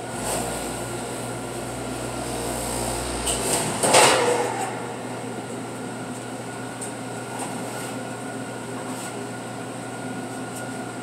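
Commercial rack oven humming steadily. A low rumble stops about three and a half seconds in, and just after it a short, loud clatter as the oven door is unlatched and swung open at the end of the bake.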